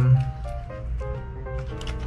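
Background music: a light melody of short held notes stepping up and down in pitch, with a few faint clicks.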